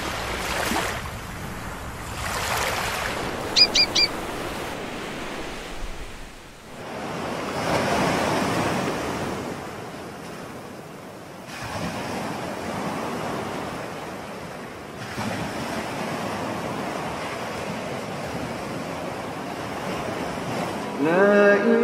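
Ocean surf on a beach: waves wash in and break in slow swells every few seconds. Three short high chirps sound about four seconds in, and a voice begins chanting right at the end.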